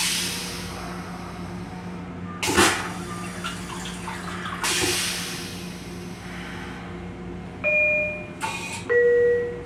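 M7 railcar toilet flushing into its stainless-steel bowl: a rush that fades over about two seconds, then a loud short whoosh about two and a half seconds in and a softer one around five seconds. Near the end the train's door chime sounds once, a two-note descending ding-dong.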